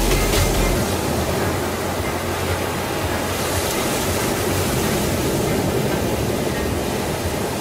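Ambient background music in a steady rushing passage with no clear beat or melody.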